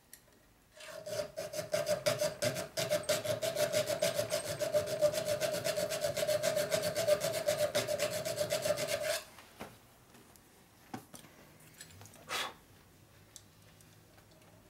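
Hand file stroked rapidly and evenly through a hole in a small metal part clamped in a bench vise, with a steady ringing note under the rasping strokes. It is enlarging a mis-shaped screw hole so the screw will fit. The filing stops about nine seconds in, and a single knock follows a few seconds later.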